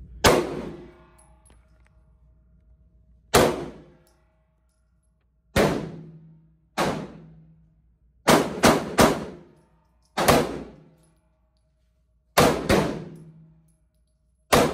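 Semi-automatic pistol fired shot by shot in an indoor shooting range, eleven shots at an uneven pace, with three in quick succession about eight seconds in and a quick pair near twelve seconds. Each crack is followed by a short echo off the range walls.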